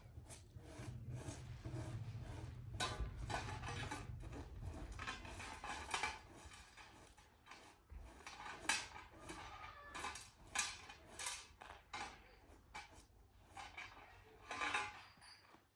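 Irregular clatter of dishes, pots and metal utensils being handled, a string of sharp clinks and knocks over a low hum that fades out about halfway through.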